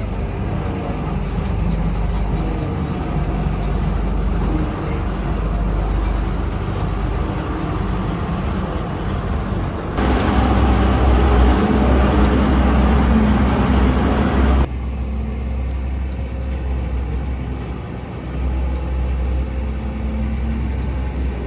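Engine of heavy farm machinery running steadily. Partway through it turns louder and fuller for about five seconds, starting and stopping abruptly.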